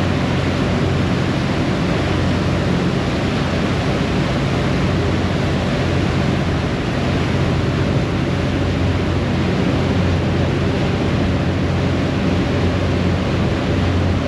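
Harbour ferry under way: the steady low drone of its engines under the constant rush of the churning wake water.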